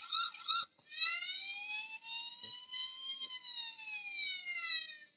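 Toy fire truck's electronic siren sound effect, set off by its push button: a few quick yelping swoops, then, about a second in, one slow wail that rises and then falls away.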